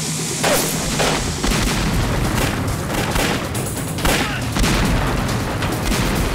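Film battle sound effects: irregular rifle shots and explosions booming over a continuous low rumble.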